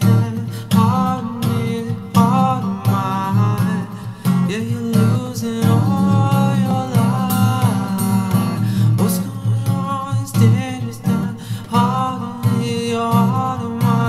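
Music: a guitar-backed song passage with a gliding melodic line over a dense, steady bass.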